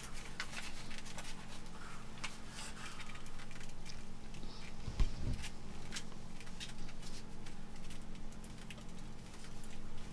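A dry iron sliding back and forth over a tea towel laid on a rexine-covered board, with scuffing, rustling and small clicks of cloth and covering. One dull thump about five seconds in, over a steady low hum.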